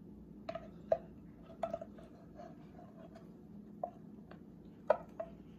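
A spoon knocking and scraping against the rim and side of a pot while meatballs are scooped out, about six sharp clinks with a short ring, the loudest about a second in and near the end, over a steady low hum.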